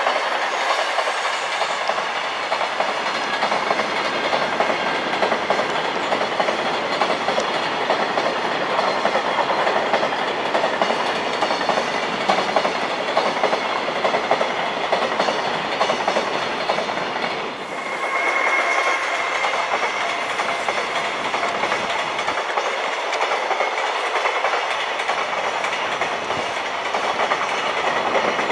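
A long train's cars running past at speed: a steady noise of wheels on rail with clickety-clack over the rail joints. It dips briefly about two-thirds of the way through, then carries on.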